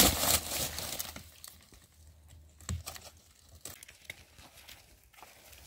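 Rustling and crinkling, loudest in the first second and fading to faint scattered crackles, with a soft thump about three seconds in.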